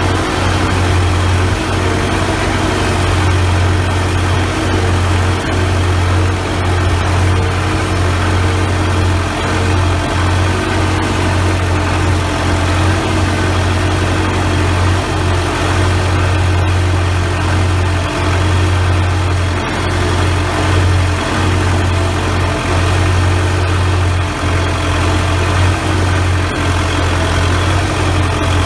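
Four-cylinder diesel engine of a CASE 580B backhoe running steadily with a deep, even hum.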